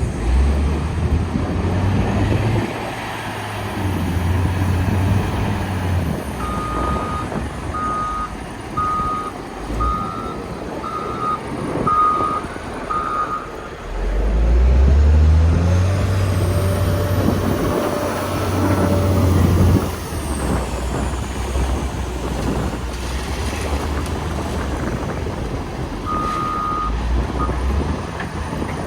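CAT 966H wheel loader's diesel engine working under changing load, its pitch rising and falling, with a hard rev lasting several seconds midway. Its reversing alarm beeps about once a second for some seven beeps starting about six seconds in, and briefly again near the end.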